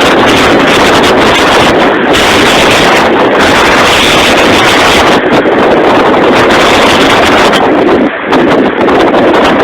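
Strong storm wind blasting the microphone, a loud, steady rushing that nearly overloads the recording, with a brief dip near the end.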